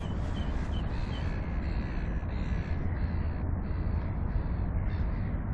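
Birds calling, with a quick run of short calls in the first second, over a steady low rumble.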